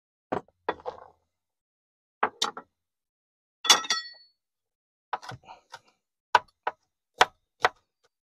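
A chef's knife chopping garlic on a wooden cutting board: short, sharp knocks, a few spread out at first, then fairly regular at about two a second in the second half. A single ringing clink comes near the middle.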